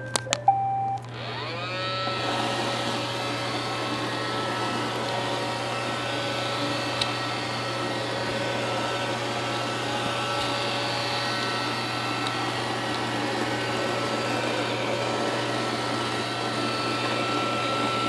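iRobot Roomba robot vacuum starting a cleaning run: a short beep, then its vacuum and brush motors spin up about a second in and run with a steady whir. There are no screeching noises from its speaker on this first test run after its water-damaged main board was baked dry.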